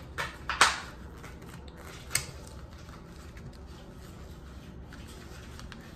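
Botbots single-pack toy packaging being handled and opened: a few sharp clicks and snaps, the loudest about half a second in and another about two seconds in, over a low steady hum.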